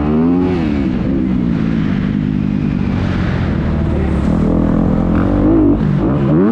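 Dirt bike engine heard from on board, revving up and down with the throttle as the bike is ridden round the track. The pitch climbs near the start, dips and holds lower through the middle, and climbs again near the end.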